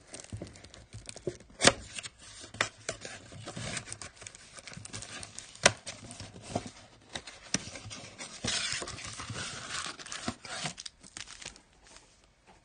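Trading-card blaster box packaging being torn open and crinkled by hand, with scattered sharp clicks and a longer stretch of tearing about eight and a half seconds in.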